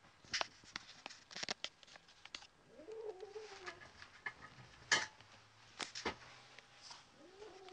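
Domestic cat yowling in a territorial standoff with another cat: a low, drawn-out moan that rises and then sinks about three seconds in, with a second one starting near the end. Scattered sharp clicks and taps are heard alongside.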